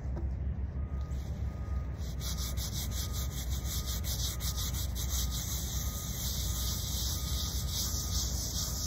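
A small stiff-bristled hand brush scrubbing the face of a headstone in rapid back-and-forth strokes, starting about two seconds in.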